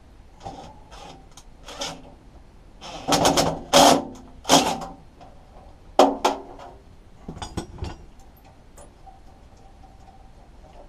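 Cordless impact driver with a socket running a bolt into a sheet-metal cover in about five short bursts, the loudest in the middle, with lighter clicks and knocks of parts being handled before and after.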